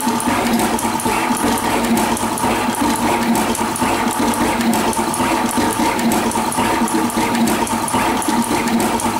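NeoDen TM240A desktop pick-and-place machine running with both placement heads, picking and mounting components: a steady whirring hum from its motors and built-in vacuum pumps, with a fast, regular ticking.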